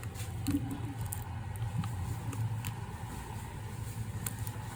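A steady low mechanical hum, like a running engine, with scattered light clicks and taps over it.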